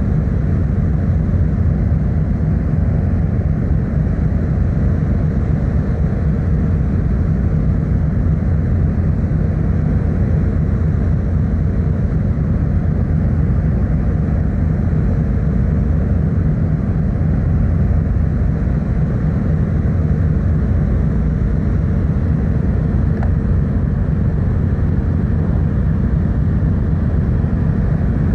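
The car ferry Kuniga's engines droning steadily on board: a loud, even low rumble with a faint steady hum above it.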